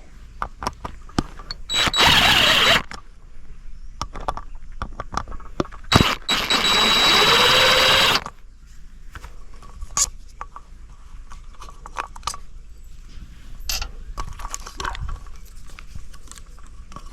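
Two loud bursts of a hissing jet used to clean a dismantled part: one about a second long, then one of about two seconds with a tone rising under it. Clicks and knocks of metal parts being handled come in between.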